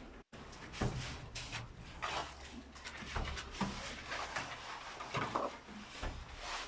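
Irregular short scrapes and knocks, typical of hand tools being worked on a building site, with the sound cutting out briefly near the start.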